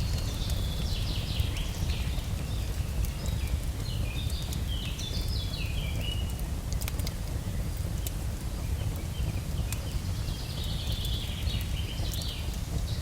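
Forest ambience: birds chirping in quick, stepped phrases over a steady low rumbling noise, with scattered sharp crackles of a campfire. The birdsong fades in the middle and returns near the end.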